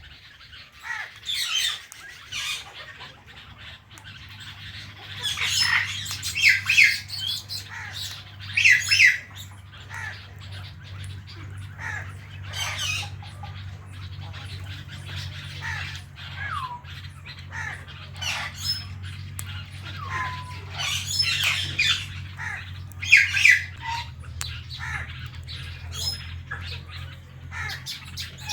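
Indian ringneck parrots squawking and chirping in short, harsh, irregular calls, with a few short sliding whistles among them. A low steady hum runs underneath.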